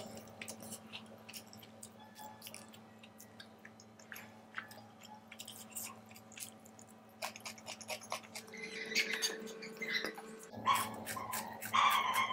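Close-miked chewing of chicken biryani, with many small wet clicks and smacks of the mouth. The chewing grows louder and busier near the end. A faint steady hum runs underneath.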